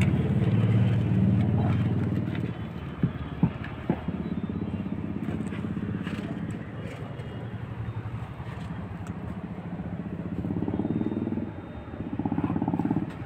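A motor vehicle engine running steadily, louder for the first couple of seconds and again near the end, with three sharp clicks about three to four seconds in.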